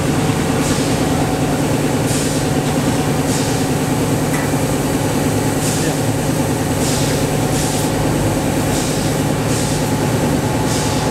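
Steady, loud hum and drone of foam-block factory machinery. Short hisses come roughly once a second over it, while expanded polystyrene beads pour into a metal hopper.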